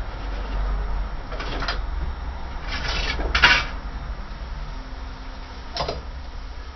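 Workshop handling noises: a few short scrapes and knocks, the loudest about three and a half seconds in, over a steady low hum.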